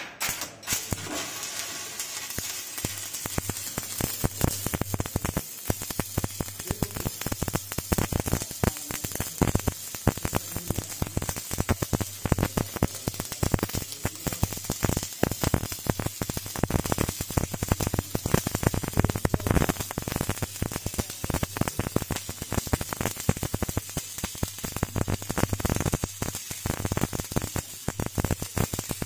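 Electric arc welding: the arc strikes about half a second in and then burns steadily with a constant crackling sizzle, over a low steady hum.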